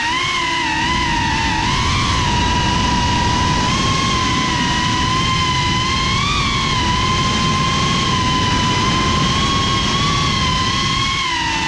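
Geprc Cinelog 35 cinewhoop's motors and ducted propellers whining steadily in flight, the pitch wavering slightly up and down with throttle, over a low noise beneath.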